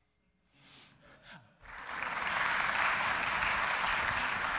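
Audience applauding, starting about a second and a half in and holding steady.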